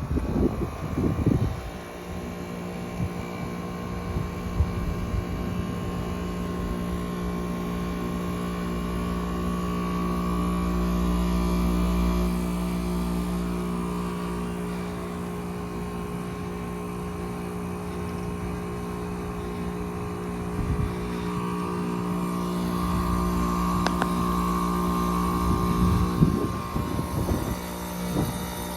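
2022 Gibson heat pump outdoor unit running, a steady compressor and fan hum. A single sharp click about 24 seconds in, and low rumbling bursts near the start and again near the end.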